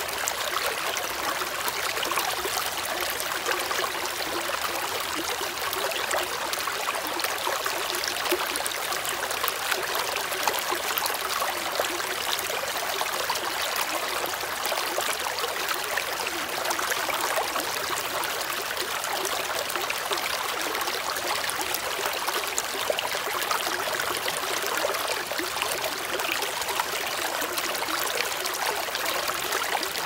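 A shallow rocky stream rushing and splashing over and between stones close by, a steady, even water noise.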